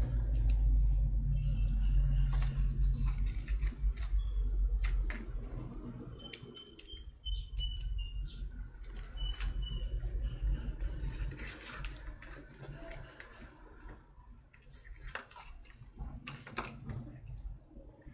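Hands handling clear plastic cups and working white slime: scattered clicks, taps and small sticky pops, with a low rumble over the first five seconds.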